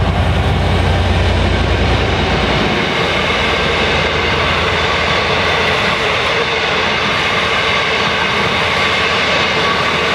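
An EMD-powered V/Line diesel locomotive hauling a passenger train passes close by, its engine drone fading about three seconds in. After that, the carriages roll past with a steady rush of wheels on rails.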